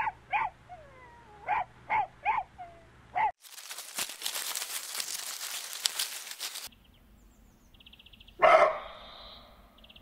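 A dog giving five short barks in about three seconds, with whining glides in between. A stretch of even hiss-like noise follows. About eight and a half seconds in comes a single short, louder cry.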